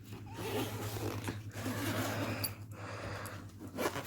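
Zipper of a soft pet carrier being pulled open in a few rasping strokes, over a steady low electrical hum.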